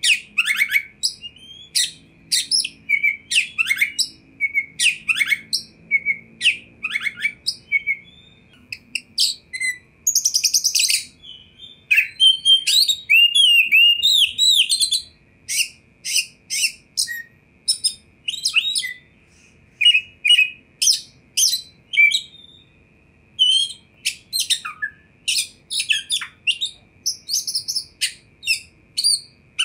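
Oriental magpie-robin (Copsychus saularis) in full song: a long, varied run of short whistled notes and chirps, broken by fast, very high trills and sliding whistles, with short pauses between phrases.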